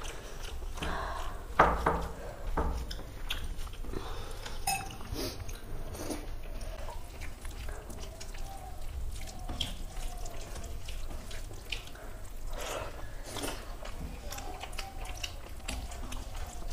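Bare fingers mashing and mixing rice with runny dal on steel plates, with chewing and wet lip-smacking: a run of soft squelches and clicks. There is one sharper knock about a second and a half in.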